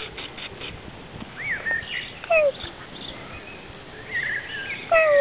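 A grey kitten meowing twice, short falling meows about two seconds in and again near the end, with small birds chirping in the background.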